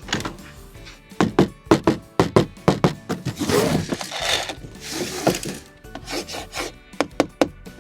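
Diecast model truck being handled on a wooden surface: irregular clicks and knocks with scraping and rubbing.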